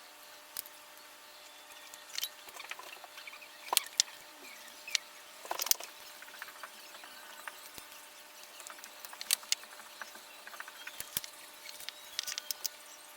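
Irregular light clicks and taps of small objects being handled and set down, a dozen or so scattered through, over a faint steady hum.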